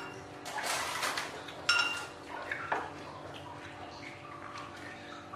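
Tableware clinking at a meal: about two seconds in, a plate or glass is knocked with a short ringing clink, and a lighter knock follows a second later, after a second or so of rustling noise.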